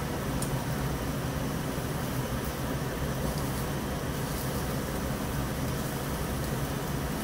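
Steady whooshing hum of a restaurant's ventilation or air conditioning, with a few faint clicks from chopsticks and a rice bowl.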